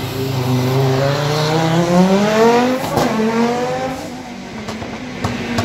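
Audi Sport Quattro S1 rally car's turbocharged five-cylinder engine accelerating hard, its pitch climbing for about two and a half seconds. The revs drop with a sharp pop about three seconds in, climb again briefly, then ease to a steadier, quieter note.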